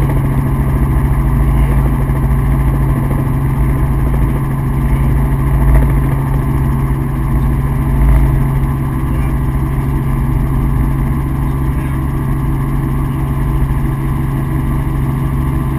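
Helicopter running steadily in flight: a loud, constant low drone of engine and rotors.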